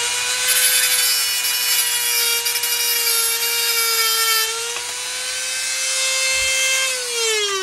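Old Dremel rotary tool spinning a diamond grinding disc inside a TungstenMate tungsten-grinder attachment, with a steady high whine. For about four seconds a tungsten electrode is sharpened against the disc, adding a gritty hiss. Near the end the tool is switched off and the whine falls in pitch as the motor spins down.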